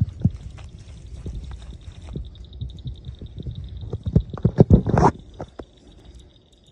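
Rustling and brushing of tall grass and brush as someone pushes through it on foot, with handling rumble on the phone's microphone. The brushing comes in a run of irregular knocks, loudest about four to five seconds in.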